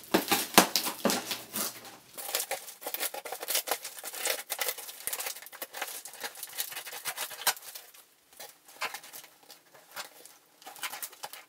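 Scissors cutting along the packing tape on a cardboard box: a run of irregular scratchy slices and crinkles of the plastic tape, with short pauses near the end.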